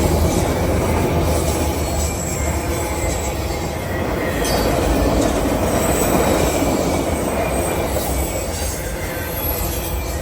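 CSX manifest freight train rolling past at track side: a steady rumble and rattle of steel wheels and cars on the rails, with a thin high squeal of wheels on the rail.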